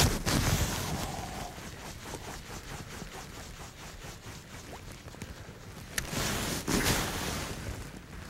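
A fishing rod cast with a swish, then the reel cranked in with a quick, even run of clicks over a steady hiss of wind and water. A louder rush of noise with a sharp click comes about six seconds in.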